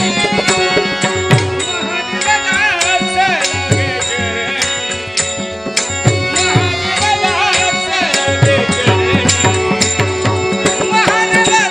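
Devotional Marathi folk music to Ganesh: tabla-style hand drum strokes in a steady rhythm under held sustained tones and a winding, ornamented melody line, with sharp clicks on the beat.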